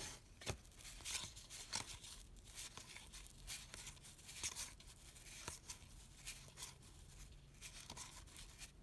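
Cardboard baseball cards (1983 Donruss) being flipped through by hand, each card slid off the stack with a faint papery swish, about one a second.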